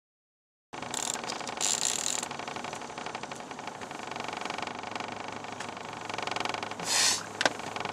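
Boat motor running steadily at trolling speed, a constant hum with a fast, even mechanical chatter. It cuts in under a second in, with brief rustling near the start and again about a second before the end.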